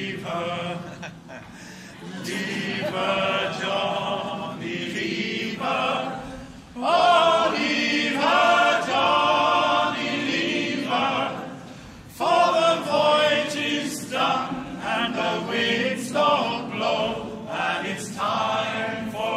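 Many voices singing together without instruments, a sea shanty sung in phrases. The singing swells louder about seven seconds in and again about twelve seconds in.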